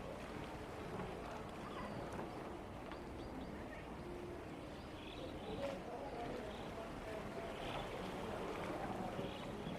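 Steady outdoor ambience of a public place with indistinct voices of passers-by in the background, and a short knock about six seconds in.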